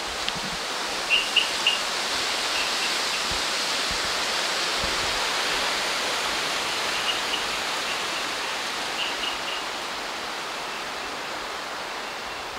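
Steady rush of wind through the forest canopy, swelling a little in the middle. A bird chirps a few short notes now and then, three quick ones about a second in.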